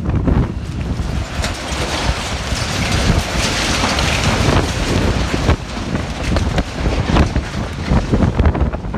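Storm-force wind buffeting the microphone in heavy, uneven gusts. About three to five seconds in, a louder hissing rush rises as a large marquee's fabric and frame are torn up and blown over, with scattered sharp rattles and cracks.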